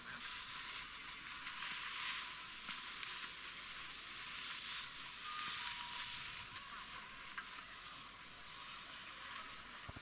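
Steady hiss of skis and snowboards sliding over packed snow, swelling louder about a second in and again around five seconds in.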